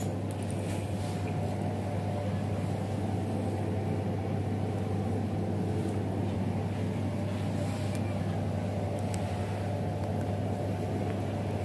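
A steady low machine hum with a rumbling noise beneath it, unchanging throughout.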